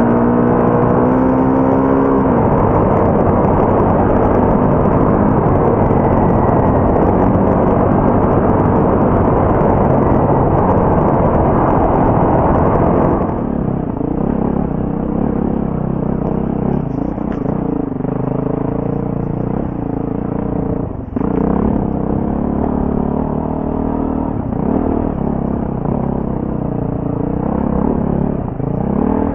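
BMW G450X single-cylinder four-stroke enduro engine being ridden off-road. It revs up at the start and runs hard and loud for about the first thirteen seconds, then eases off, with the revs rising and falling repeatedly and a brief drop about two-thirds of the way through.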